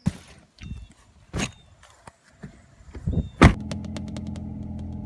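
A few knocks and bumps, the loudest a heavy thump about three and a half seconds in, then a car engine running steadily with a low hum.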